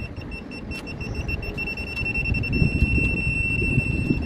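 Aftermarket parking-sensor buzzer beeping on one high tone, still quite loud at its middle volume setting. The beeps quicken and run together into a continuous tone about a second and a half in: the warning that an obstacle is at the bumper, in the closest range.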